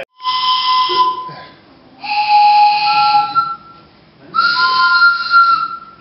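Hand-turned wooden train whistle with four dowel reeds, blown three times in short breathy blasts, each sounding a chord of several steady tones at once. The whistle is being test-blown with all four reeds fitted, giving four tones.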